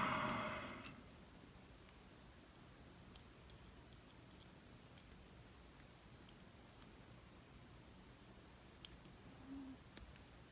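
Faint, scattered sharp clicks, about half a dozen over several seconds, of small metal lock parts being handled as a DOM RS8 cylinder is taken apart.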